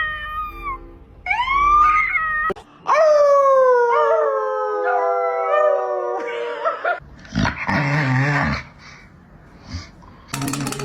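Dog howling: a short howl that rises and falls, then a long howl of about three seconds that slides down in pitch.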